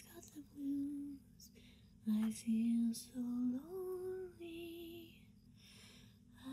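A woman singing a slow tune alone, in long held notes with short breaths between them.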